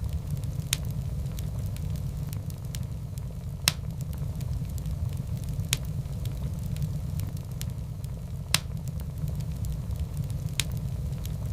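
Wood fire burning in a fireplace: a steady low rumble of flames with light crackling, and five sharp pops from the logs, about every two to three seconds.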